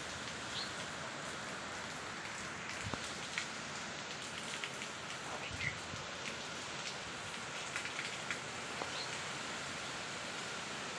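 Steady rain falling, with many separate drops tapping irregularly close by.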